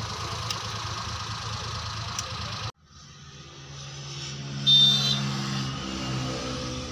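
Tata Vista diesel engine running. About three seconds in the sound cuts off abruptly, then comes back as a steady hum that grows louder, with a brief loud sound near five seconds.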